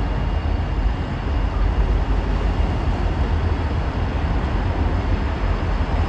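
Union Pacific switcher diesel locomotive moving past, a steady low rumble.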